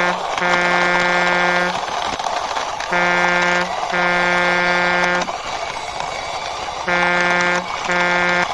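Toy cement mixer truck's horn honking in pairs, a short toot then a longer one, repeated about every three seconds, over a steady rolling noise as the toy is pushed along by hand.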